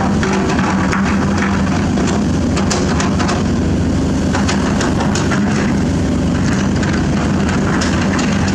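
Excavator diesel engine running steadily under load, with irregular sharp cracks and knocks of limestone rock being broken up.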